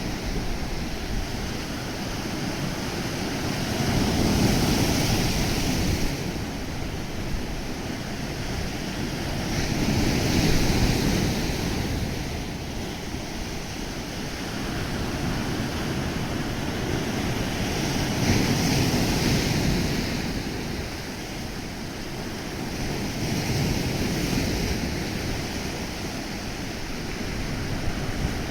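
Mediterranean Sea waves washing onto the shore: a steady surf hiss that swells into louder breaking surges about every six to eight seconds.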